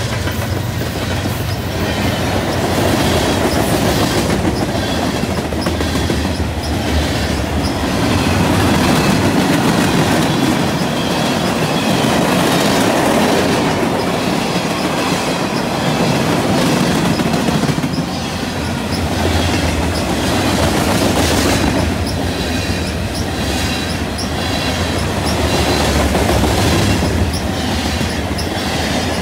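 A CN freight train's mixed cars (covered hoppers, tank cars and gondolas) rolling past close by: a steady rumble of steel wheels clacking over the rail joints, with a faint high wheel squeal.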